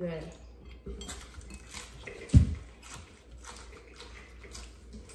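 Light clicks and rustles of food and dishes being handled at a meal, with one loud dull thump about halfway through.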